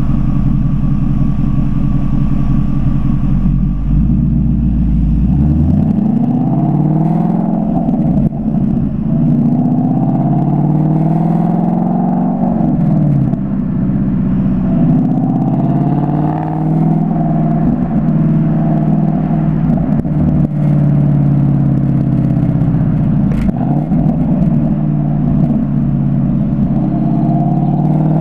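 2015 Mustang GT's 5.0 L V8 through an FRPP Sport exhaust, idling and then pulling away. The engine note climbs and drops back several times as it accelerates through the gears, then settles before rising again near the end.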